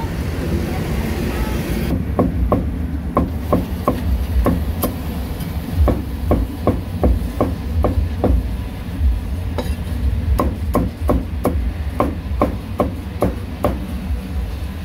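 Cleaver chopping cooked offal on a wooden chopping board: a run of sharp chops at about three a second, starting about two seconds in, with a short pause partway through. A steady low background rumble runs underneath.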